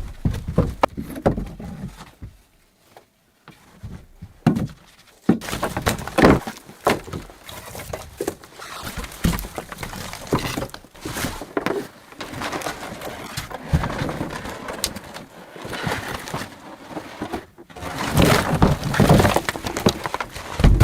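Irregular cracking, knocking and crunching, like wood being handled and broken, with a quiet pause of a couple of seconds near the start.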